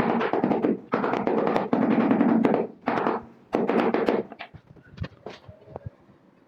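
Floor tiling work: four long, loud scraping strokes, followed about four seconds in by a few light, scattered knocks.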